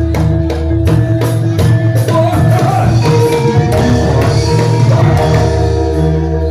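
Music accompanying a jathilan (kuda lumping) horse dance: sustained instrumental tones over a regular percussion beat, with a singing voice gliding in and out.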